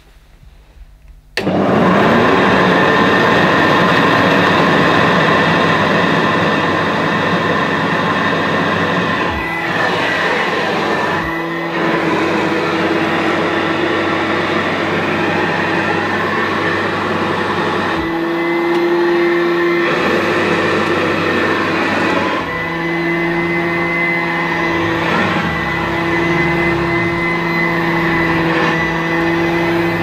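1970s Hoover U4014 Ranger Senior upright vacuum, a dirty-fan machine, switched on about a second in: its motor spins up with a rising whine, then runs steadily. The tone shifts a few times as it is pushed over carpet. The owner judges the motor sound pretty good, but finds the brushes struggling a little on the carpet and thinks it needs a new belt.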